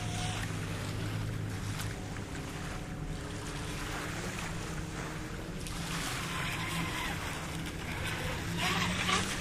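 WLtoys WL913 brushless RC speedboat, running on a 4S lipo, speeding across the water over wind on the microphone and small waves lapping the sand. It gets louder near the end as it runs close by.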